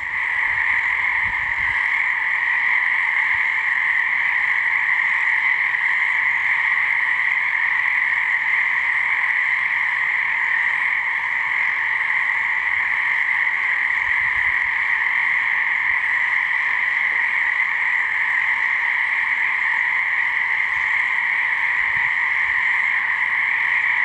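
Dense chorus of many frogs calling together, steady and unbroken throughout.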